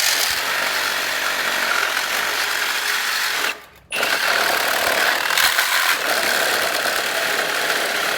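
Power tool cutting through a tankless water heater's metal casing. It runs in two long runs, with a short stop about three and a half seconds in.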